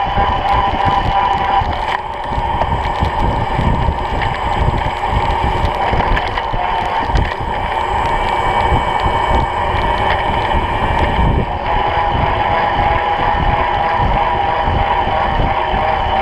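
Riding noise from a camera mounted on a moving Brompton folding bicycle: wind buffeting the microphone and tyre rumble on the asphalt, with a steady hum over it.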